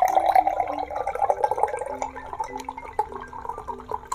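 A person drinking milk: a continuous wet, liquid sound with small ticks.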